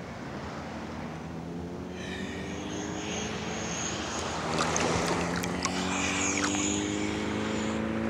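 A distant engine's drone, its pitch rising slowly and growing steadily louder.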